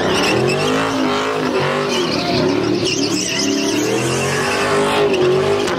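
Fourth-generation Chevrolet Camaro doing donuts: the engine is held at high revs, its pitch swinging up and down, over the screech of spinning tires on pavement.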